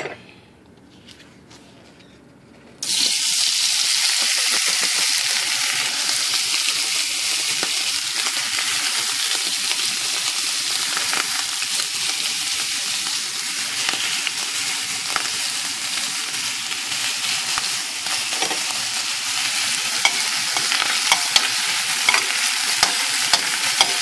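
Sliced roast beef and scallions dropped into a stainless steel skillet of oil heated a little hotter than it should be, setting off a sudden loud, steady sizzle about three seconds in. Toward the end a metal spoon ticks and scrapes against the pan as the food is stirred.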